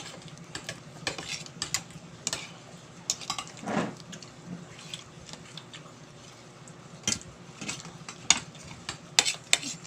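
Cutlery clicking and clinking against a plate at irregular moments during a meal.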